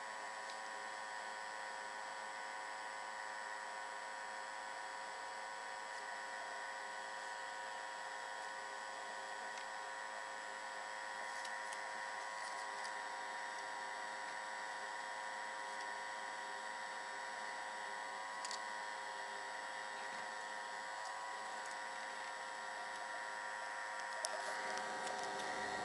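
Small electric motor and fan of a homemade plastic-bottle air filter running steadily: a constant whine made of several high tones, with a couple of faint clicks.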